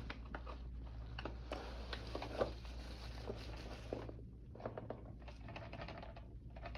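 Scattered light taps, clicks and rustling of packaging being handled, over a steady low hum.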